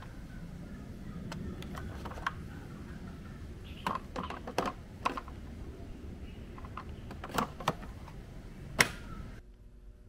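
Sharp plastic clicks and knocks as the dirty-water tank of a Bissell CrossWave wet-dry vacuum is unlatched and handled, about eight in all, scattered over a low steady rumble. The loudest click comes near the end.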